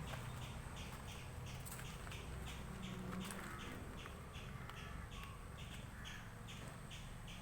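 An animal call repeating in short, even chirps about four times a second, over a low steady hum.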